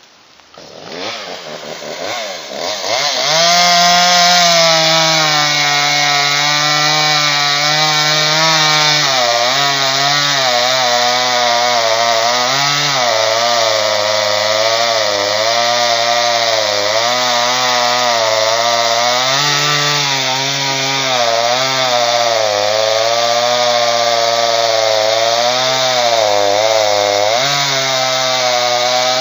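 Two-stroke chainsaw running at high revs through dead white birch, building up over the first few seconds, then its pitch dipping and recovering again and again as the chain loads in the cut.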